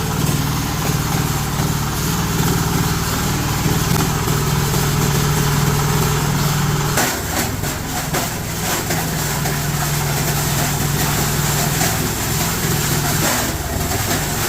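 Plastic crusher machine running with a steady low hum. About halfway through, a run of sharp cracks starts as pieces of plastic drum and chair are chopped, with a few more near the end.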